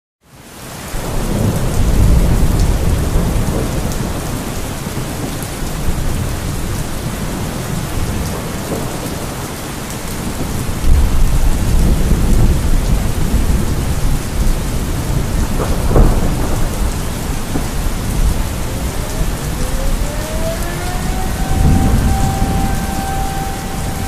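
Steady rain with rolling thunder. Near the end an air raid siren starts up, its pitch rising and then holding a steady tone.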